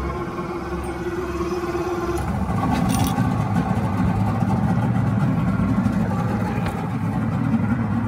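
V6 outboard motor running as the boat moves under way. About two seconds in, a steady tone drops out and the sound grows louder and rougher.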